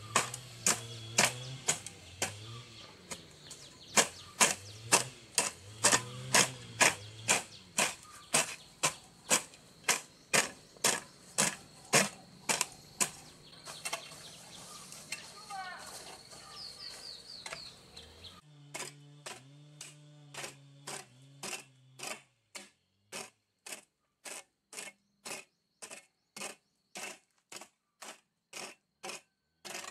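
Repeated sharp strikes at a steady rhythm of about two a second, like a hand tool working. A short run of bird chirps comes about sixteen seconds in.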